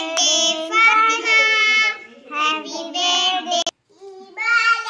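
A child singing, with long held notes; the singing breaks off abruptly for a moment near the end, then starts again.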